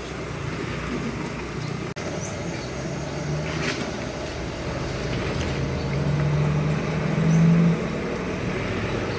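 A motor vehicle engine running nearby over a steady street background, its low hum rising in pitch and growing louder about six to seven seconds in. A faint clink about three and a half seconds in.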